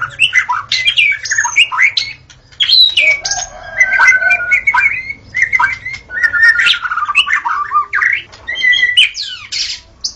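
White-rumped shama (murai batu) singing a fast, varied song of rising and falling whistles, trills and harsher notes, with a brief pause about two seconds in.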